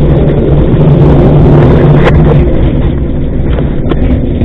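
Rational combi oven's CleanJet pump running during its function test, pumping water through the cleaning circuit at full flow. A steady, loud hum with water rushing.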